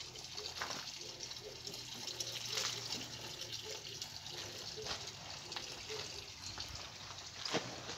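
Water running steadily, with a few faint clicks and a sharper one near the end.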